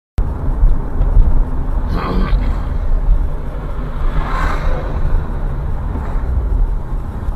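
Car driving, heard from inside through a dashcam: steady low road and engine rumble, with a swell of broader noise about four seconds in.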